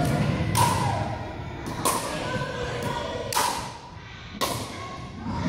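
Pickleball paddles striking the plastic ball in a rally: four sharp pops about a second apart, each echoing briefly in a large gym.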